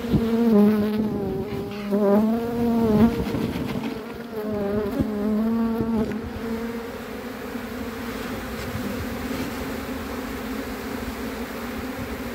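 Honeybees buzzing close by: a loud drone that wavers up and down in pitch in two spells in the first six seconds, then settles into a steadier, softer hum of the mass of bees.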